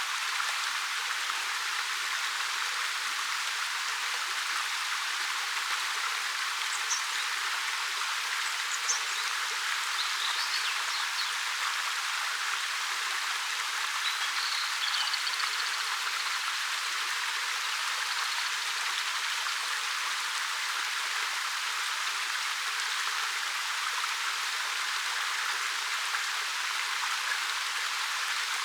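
Steady rush of a 13 m waterfall pouring over rock, an even hiss of falling water with no deep rumble. A few faint, short, high bird chirps come through between about 7 and 16 seconds in.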